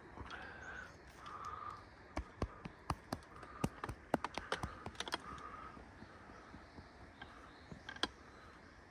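A quick, irregular run of light clicks and taps, bunched over a few seconds with one more near the end, and a few short faint whistle-like notes between them.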